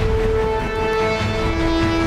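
Background music: a slow melody of held notes over a steady low pulse.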